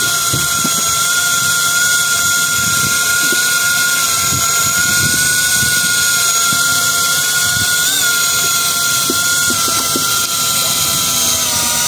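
Electric fishing reel winding in line under load, with a steady high motor whine; the whine drops slightly in pitch near the end.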